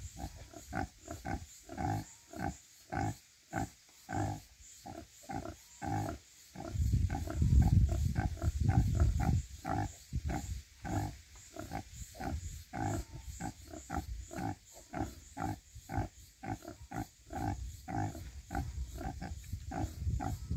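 Nursing sow grunting in a steady rhythm, about two short grunts a second, the call a sow makes while her piglets suckle. A louder low rumble runs for a few seconds around the middle.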